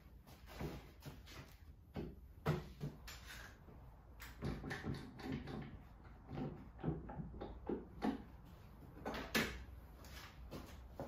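Irregular wooden knocks, taps and scuffs as a 3/4-inch plywood top is shifted and handled on a 2x4 workbench frame, with a sharper knock about nine seconds in.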